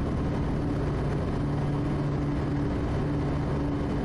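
Quest Kodiak's Pratt & Whitney PT6A turboprop at full takeoff power during the takeoff roll, a steady drone with a constant propeller hum.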